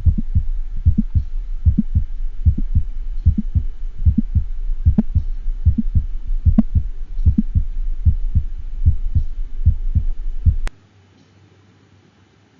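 Auscultated heart sounds with a mid-systolic click: a steady, regular run of low heartbeats, each with a sharp snapping click between the first and second heart sounds, over a low steady hum. The click comes from a valve prolapsing or tenting toward the atrium in mid-systole, as is often heard with degenerative mitral or tricuspid valve disease. The playback stops abruptly near the end.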